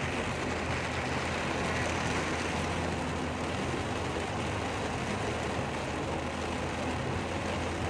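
Heavy downpour heard as a steady, unbroken hiss of rain, with a car's engine and road noise running low underneath.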